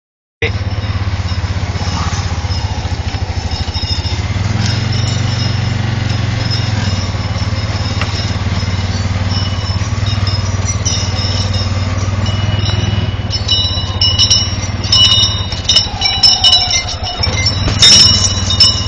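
A vehicle's engine running steadily at low speed, heard from inside the cab. In the last five seconds or so, short high ringing clinks come and go over it.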